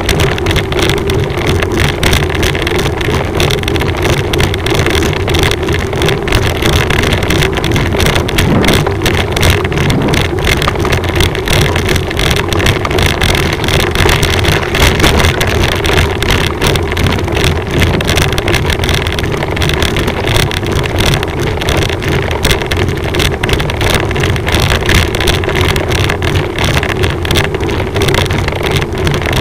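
Motor vehicle engine running steadily at low speed, with a constant hum and wind buffeting the microphone.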